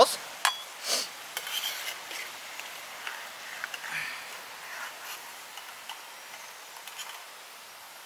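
A wire skimmer clinking and scraping against a metal pot as deep-fried chips are lifted out of the hot oil, which sizzles in a steady hiss. Several short sharp clinks come through, the loudest about a second in.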